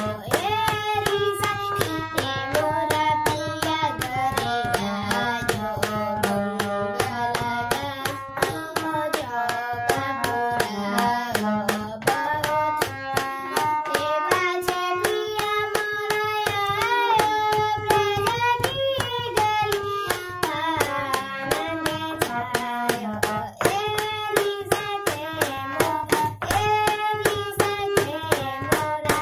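A boy singing an Indian classical melody to his own harmonium, the reedy held notes of the instrument under his bending voice, with a brisk run of sharp taps keeping the beat throughout.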